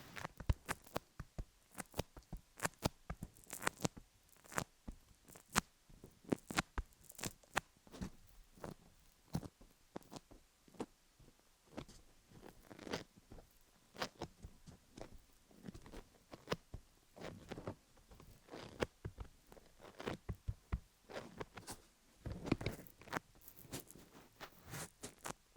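Fingers working Vaseline over a rhinestone-covered dummy-head microphone: close, sticky clicks and crackles at an uneven pace, with a longer crackly rub about 22 seconds in.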